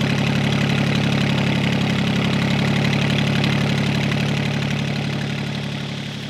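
Fishing boat's engine running steadily with a fast, even pulse, growing quieter over the last second or two.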